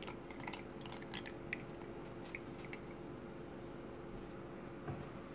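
Borax water poured slowly from a small glass onto slime in a toy food processor bowl: faint trickling with a few small wet clicks in the first couple of seconds, then only a faint steady hum.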